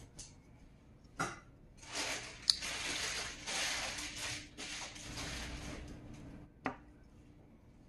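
Sanrenmu folding multitool knife being handled: its saw blade is pulled open and folded back, with sharp metal clicks as the blade snaps into place and locks, about a second in, again at two and a half seconds, and once more near the end. Between them, a few seconds of rustling from fingers working the tool.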